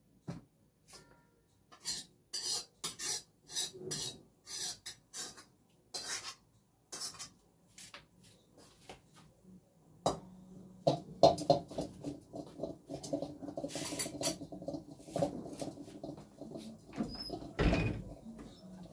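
Metal cookware being handled: a series of short scraping and clanking strokes from a black iron wok and pots. From about halfway through, it turns to louder rubbing and handling close to the microphone, with a heavy thump near the end.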